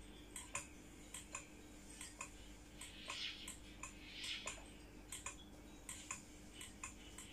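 Faint, regular light clicks, often in close pairs, a little more than once a second, over a low steady hum.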